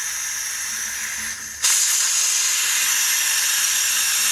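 Compressed air hissing out of a compressor tank's opened drain valve, blowing out condensate water as mist. The hiss is steady, dips briefly, then comes back louder about one and a half seconds in.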